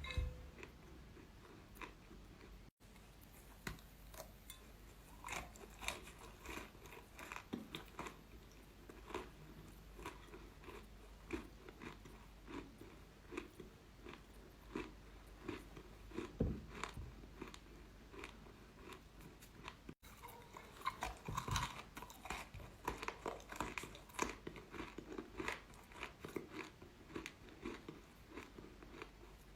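Close-miked chewing of crunchy chalk: a dense run of sharp bites and crunches, several a second, that briefly cuts out twice.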